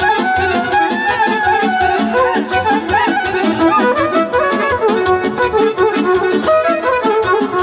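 Romanian folk dance music for a hora: a quick, ornamented melody over a steady beat.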